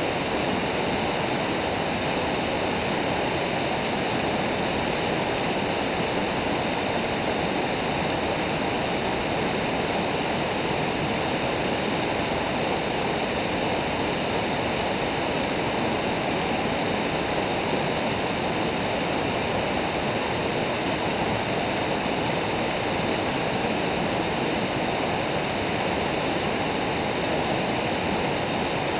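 River water pouring over low rock ledges in small waterfalls, a steady, even rushing that does not change.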